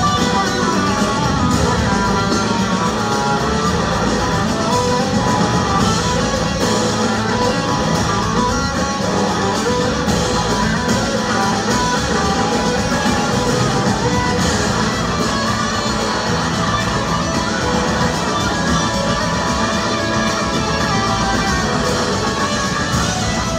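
Live rock band playing an instrumental, guitar-led passage, with electric guitars over strummed acoustic guitar, heard from the audience.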